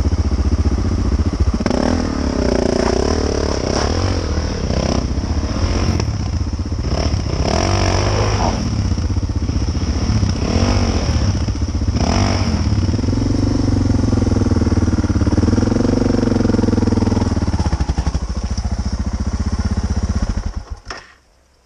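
Suzuki dual-sport motorcycle engines running: one idles steadily close by while another revs up and down repeatedly as it climbs a rooty trail. The engine noise cuts out near the end.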